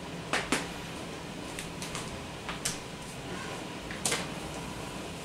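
A handful of short, sharp knocks and clicks, a pair near the start and more spread through the rest, over a steady low room hum.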